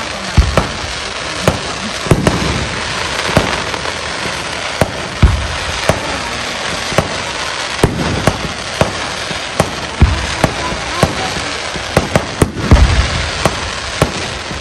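Aerial fireworks bursting: an irregular run of sharp bangs and pops, some much heavier than others, over a constant noisy hiss.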